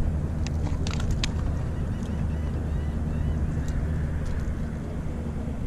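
A steady low rumble throughout, with a few small sharp clicks about a second in and again around four seconds in as a jig hook is worked out of a landed fluke's mouth by hand.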